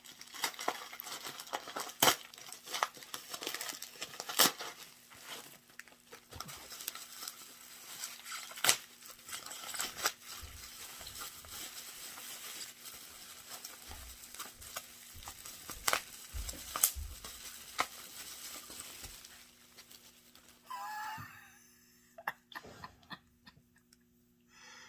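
A cardboard parcel being opened: a knife cutting packing tape, tape tearing and packing material crinkling and rustling, with many sharp clicks and knocks. About 20 seconds in it drops to a few faint handling sounds.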